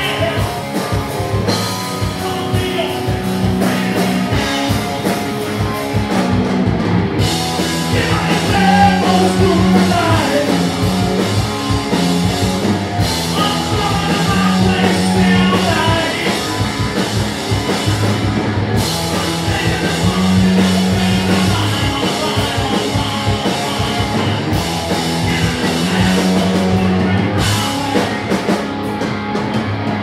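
Live rock band playing: a male singer over electric guitar, bass guitar and a drum kit.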